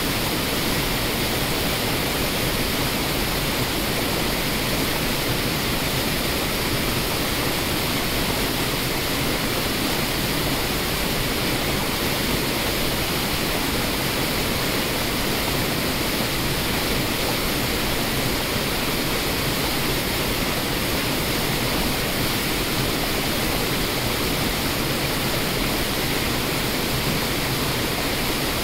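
Waterfalls and rapids on a river: a steady, unbroken rush of falling white water.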